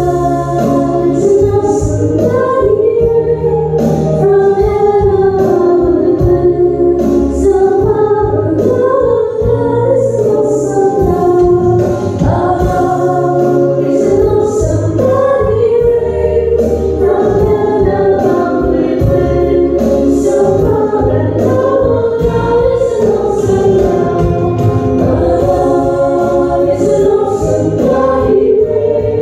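Church choir singing a Christian worship song with electronic keyboard accompaniment, sustained low keyboard notes under the voices.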